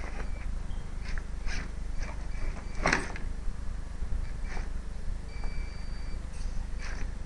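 Redcat Rockslide RS10 XT electric RC rock crawler working over loose rocks: irregular clacks and knocks of its wheels and chassis on stone, the loudest about three seconds in, with a faint high drivetrain whine a little past five seconds, over steady low background noise.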